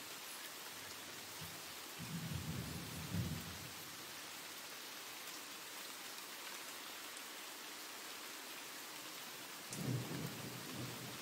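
Steady rain, an even hiss, with two brief low rumbles, about two seconds in and again near the end.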